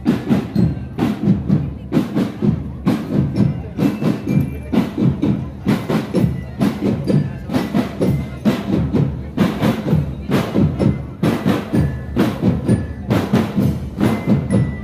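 Marching band playing a steady drum beat, about two hits a second, with short ringing bell-like notes over it.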